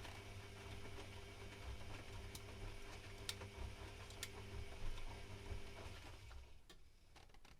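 Privileg Classic 30612 washing machine running a 95 °C boil wash: a steady hum and low rumble with a few sharp clicks. The hum and rumble stop about six seconds in.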